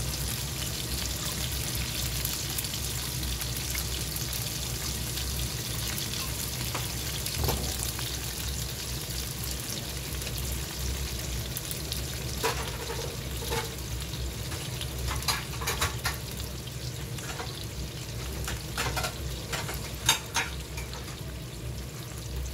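Thin-sliced pork belly rolls frying in plenty of cooking oil in a nonstick pan: a steady sizzle, with scattered sharp pops in the second half.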